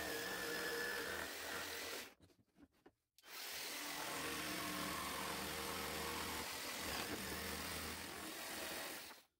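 Cordless jigsaw cutting through hardwood plywood: a steady buzzing saw run that breaks off for about a second early in the cut, starts again, and stops just before the end.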